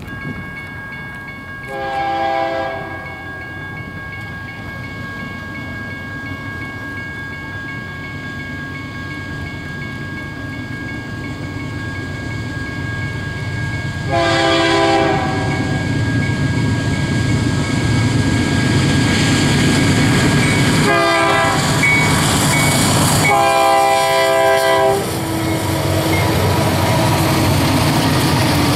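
Approaching diesel freight locomotives sounding a multi-chime air horn in four blasts, the third one short and the second and fourth longer. The rumble of the engines and train builds steadily as it nears and passes close by.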